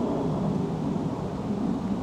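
Steady low rumble of wind buffeting the microphone, with no separate events standing out.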